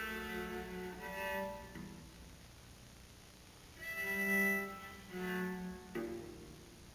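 Cello playing slow, separate held bowed notes in a cello and piano duo, with a quieter stretch of about two seconds in the middle and a sharper attack near the end that dies away.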